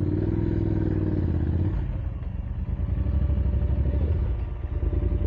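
Motorcycle engine running under way, its low pulsing note dropping about two seconds in, swelling again and dipping briefly near the end.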